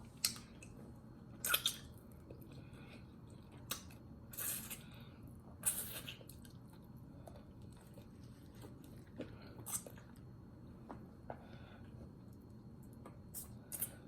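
A person eating oxtail with rice and gravy close to the microphone: soft chewing with scattered wet mouth smacks and clicks at irregular intervals.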